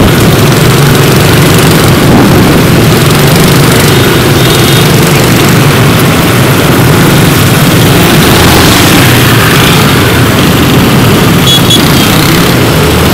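Honda Win motorcycle's small single-cylinder four-stroke engine running steadily while riding in traffic, with wind noise on the microphone.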